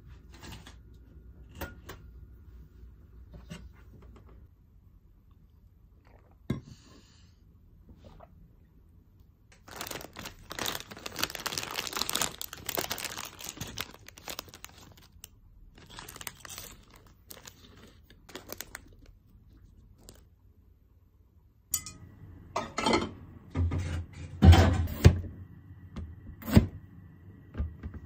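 A plastic snack wrapper crinkling and tearing as it is opened, for several seconds from about ten seconds in. From about 22 seconds in, a kitchen knife chopping green bell pepper on a cutting board: a run of knocks, the heaviest a little after halfway through the chopping.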